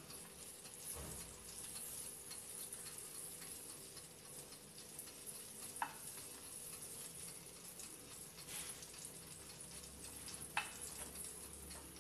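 Faint, steady sizzling of hot fat in a glass roasting dish around a freshly roasted pork knuckle as it is brushed with salt water. Two light clicks, about halfway and near the end.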